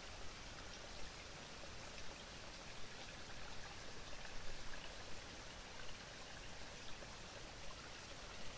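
Faint, steady outdoor background hiss with a few soft taps scattered through it.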